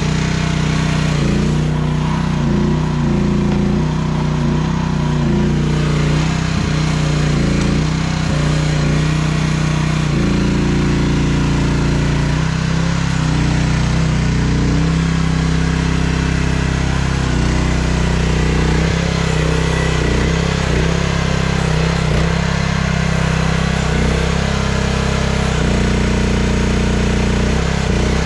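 Chinese mini excavator's small diesel engine running steadily under load while digging, its note shifting slightly as the hydraulics are worked.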